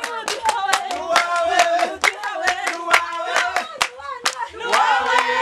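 A group singing together over quick, even hand-clapping, with the voices swelling near the end.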